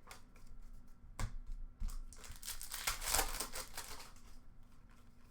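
An Upper Deck hockey card pack's wrapper crinkling and tearing as it is opened. There is a sharp tap about a second in, and the crinkling is loudest in the middle.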